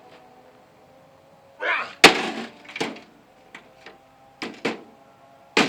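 Blows smashing a microwave oven: a crashing hit about two seconds in is the loudest, followed by several lighter knocks and clatter, and another hard hit near the end.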